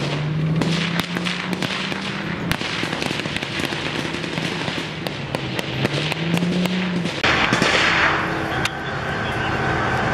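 Small-arms gunfire: many rifle shots crack irregularly, some in quick runs, over a running vehicle engine. About seven seconds in, the shots give way to a loud rushing noise lasting about a second and a half, after which the engine runs on.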